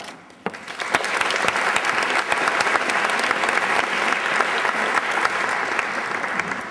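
Audience applauding, building up within the first second, holding steady, then easing off near the end.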